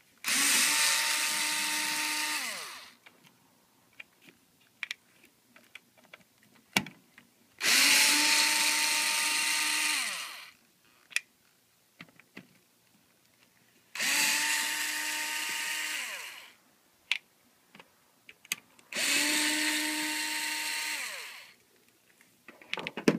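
Cordless electric screwdriver running four times, about two to three seconds each, driving out screws from the TV's main circuit board; each run winds down in pitch as the trigger is released. Small clicks and taps between the runs.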